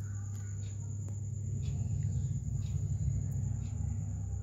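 Cat purring close up: a low steady rumble that swells in the middle and flutters in loudness, with a few faint soft clicks.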